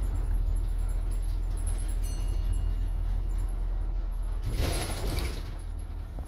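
Bus running along the road: a steady low engine and road rumble, with a short burst of hiss about four and a half seconds in.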